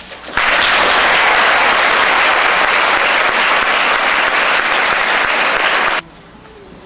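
Audience applauding loudly after a choir finishes singing: a few first claps, then full applause swelling in about half a second in and cutting off suddenly about six seconds in.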